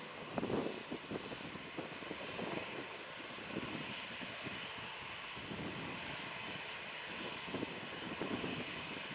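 Airbus A330neo's Rolls-Royce Trent 7000 turbofans running at low thrust as the airliner taxis and lines up on the runway: a steady jet whine and hiss. A few short low buffets come through, the loudest about half a second in.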